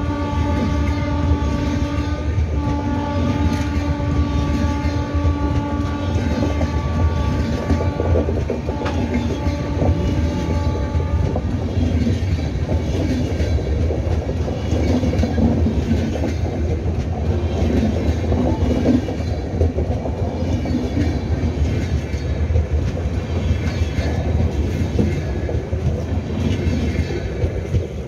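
Express passenger coaches rolling past at speed, their wheels rumbling and clattering over the rail joints, while the WAP7 electric locomotive's horn sounds continuously ahead of them. The horn breaks briefly about two seconds in and stops about eleven seconds in. The wheel rumble and clatter go on as the last coaches pass.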